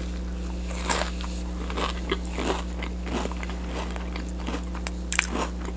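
Crunching bites and chewing of a crispy breaded onion ring close to the microphone, a crunch every half second to second.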